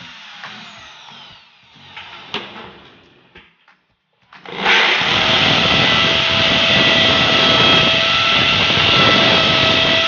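Electric drill with a small bit boring a pilot hole through the rim of a front-load washing machine's metal drum. After a few light clicks and taps, the drill starts about four and a half seconds in and runs steadily and loudly with a constant whine.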